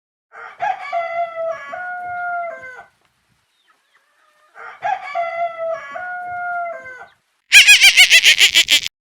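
Rooster crowing twice, each crow about two and a half seconds long with a long held note. Near the end, a louder, rapidly pulsing call from another animal cuts in, about eight pulses a second.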